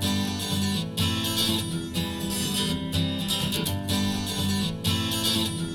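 Acoustic guitar strumming the opening of an acoustic pop song, with no singing yet, recorded through in-ear monitors for a sound comparison.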